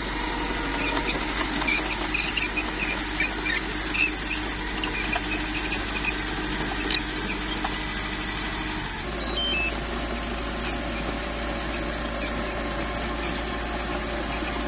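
Small crawler bulldozer working, its diesel engine running steadily under many short high squeaks from the steel tracks. The squeaks thin out after the first few seconds, and the sound changes abruptly about nine seconds in.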